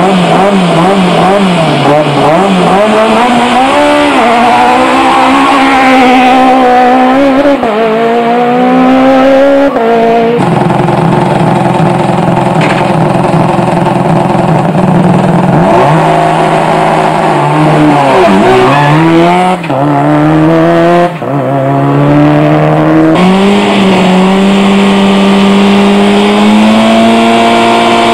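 Rally car engines, among them a Citroën Saxo's and a Subaru Impreza's, revving at a stage start: the throttle is blipped quickly up and down, then revs climb and are held high, with a sudden change about ten seconds in and revs rising again near the end.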